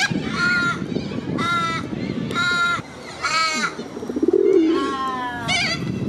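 Little corellas calling: a series of about five short cockatoo calls, roughly one a second, with a lower wavering note about four seconds in.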